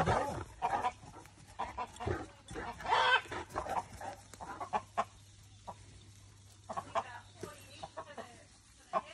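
Chickens clucking and squawking in short, irregular calls, with a quieter gap of about a second in the middle.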